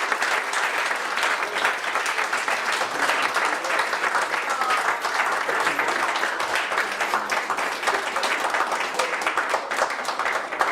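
A group of people applauding, dense steady clapping with some voices mixed in.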